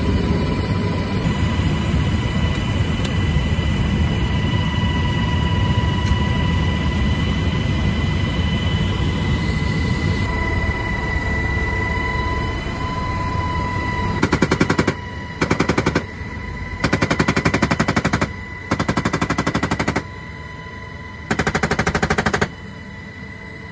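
Steady Black Hawk helicopter turbine and rotor noise with a constant high whine. About fourteen seconds in, a door-mounted M240B 7.62 mm machine gun fires five short bursts of rapid automatic fire, each half a second to a second and a half long.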